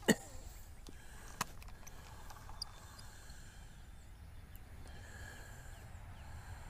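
Quiet lakeshore ambience with a faint steady outdoor hush. There is a sharp knock at the very start and a lighter click about a second and a half in.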